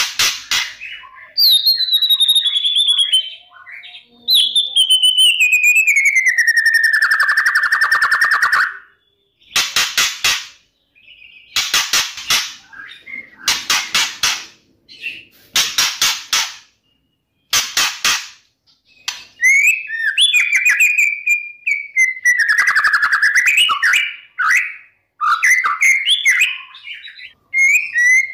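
White-rumped shama singing: long whistles sliding down in pitch, then several harsh rattling bursts about two seconds apart, then a quick run of varied whistled phrases.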